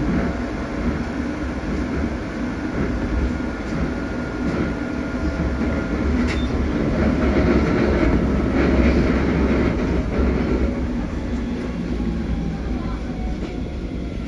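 Stuttgart rack railway car running downhill on its rack track, heard from the front of the car: a continuous rumble with scattered clicks from the running gear. It is loudest around the middle and eases off near the end, where a faint falling whine comes in.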